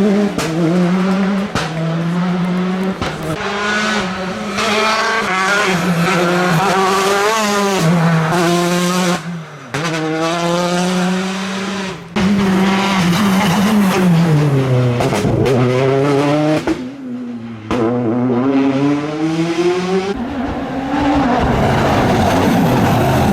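Rally cars at full attack on a special stage, their engines revving hard and dropping in pitch at each gear change. Several separate passes follow one another, each cut off suddenly.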